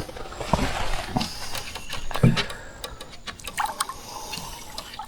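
Water lapping, with scattered small clicks and a few soft knocks.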